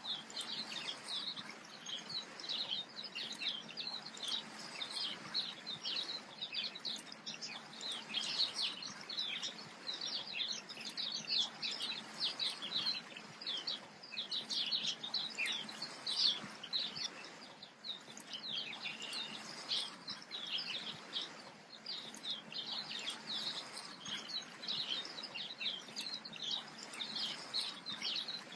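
A busy chorus of small birds, a quick run of short high chirps that never stops, over a faint steady background hiss.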